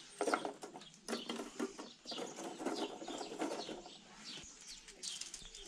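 Plastic bio balls clattering in short bursts as handfuls are dropped into a glass sump filter box, with small birds chirping in the background.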